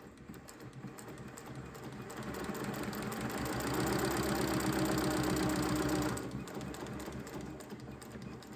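SEWPRO 8360B post-bed leather sewing machine stitching leather with its longest stitch: a rapid, even needle-stroke rhythm that speeds up over the first few seconds, runs steadily with a motor hum, then slows and winds down near the end.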